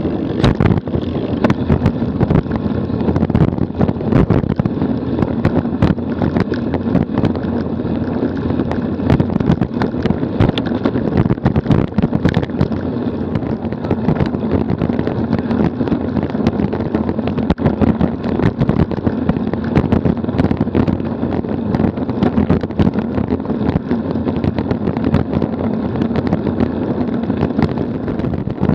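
Wind rushing over the microphone of a camera mounted on a moving bicycle, with steady road rumble and frequent small knocks and rattles as the bike rolls over the pavement.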